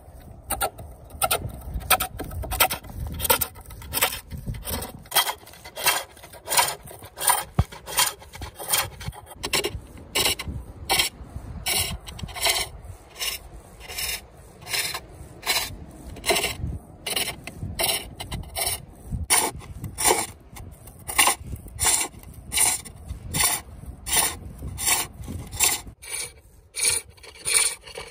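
Hook turning tool cutting a wooden bowl on a foot-powered pole lathe. It gives a burst of scraping and shaving on each downstroke of the treadle, in a steady rhythm.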